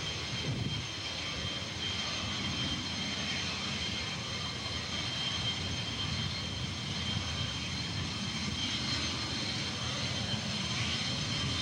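Jet aircraft engines running steadily: a constant rushing roar with a steady high-pitched whine on top.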